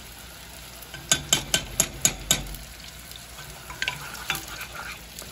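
A spoon of gochujang paste knocked and scraped against a saucepan, a quick run of about six sharp taps a second in, then stirring of the thick sauce with a wooden spatula, with a few lighter taps. Under it, the steady sizzle of chicken frying in oil on the next burner.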